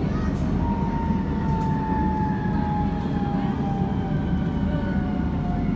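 Metro train running, heard from inside the carriage: a steady rumble, with the electric motors' whine gliding slowly down in pitch.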